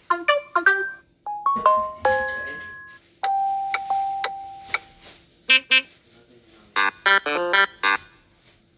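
Samsung Galaxy S25 ringtones and notification tones played one after another through a Galaxy A54 5G phone's speaker: brief melodic chimes and keyboard-like notes, each one cut off after a second or two, with a quick run of notes near the end.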